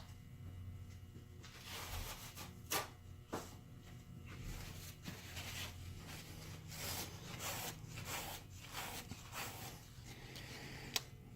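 Wire brush scrubbing a rusty machinist jack in a run of short, repeated rasping strokes, with a couple of sharp clicks.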